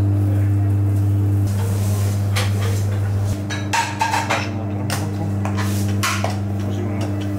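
A string of knocks and clatters as a metal funnel for piping ćevapi is handled and set down on a kitchen counter, thickest about four seconds in, over a steady low hum.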